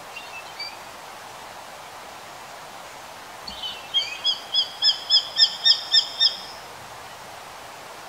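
Japanese sparrowhawk calling: a few faint high notes at first, then a little past the middle a rapid series of about nine sharp, high notes, some four a second, growing louder before stopping.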